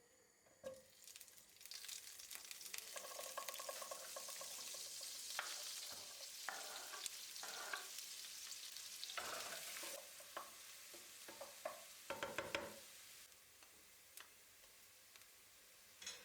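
Food sizzling as it fries in a pan while a utensil stirs it, with scrapes and light clinks against the pan. The sizzle builds about a second and a half in and drops lower about ten seconds in.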